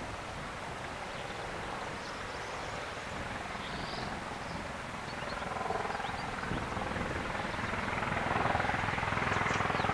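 NH90 helicopter's rotor and turbines as it approaches head-on, an even rotor chop growing steadily louder.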